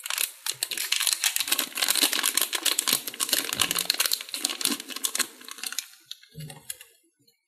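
Thin plastic packaging bag crinkling and crackling rapidly as it is opened and a clear plastic watch case is pulled out of it, dying away after about six seconds.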